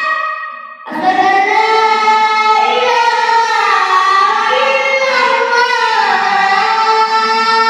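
A child's voice chanting the adhan, the Islamic call to prayer: a short pause for breath just under a second in, then one long drawn-out melodic phrase whose pitch winds up and down.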